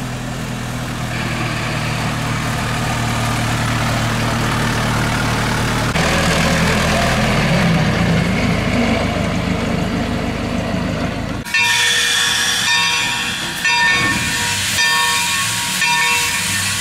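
A 1924 Ford truck's four-cylinder engine running as the truck drives past, growing louder. About eleven seconds in it cuts abruptly to a 2-8-2 Mikado steam locomotive hissing steam from its cylinder cocks, with steady high tones over the hiss.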